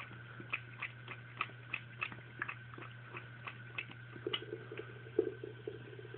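Cat lapping water from a thin stream running from a bathroom faucet: quick wet clicking laps about three a second over a faint steady trickle. Around four seconds in the laps thin out and give way to rustling, with one louder thump.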